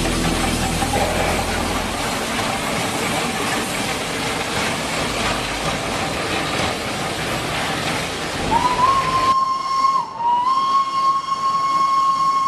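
Achenseebahn cog-railway steam locomotive hissing steam. About two thirds of the way in, its steam whistle sounds one long steady note, breaks off for a moment and is then held on.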